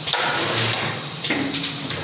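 Automatic CNC wire bending machine working steel wire, its pneumatic cylinders clicking and hissing in short bursts, with a sharp click near the start and a brief low hum around the middle.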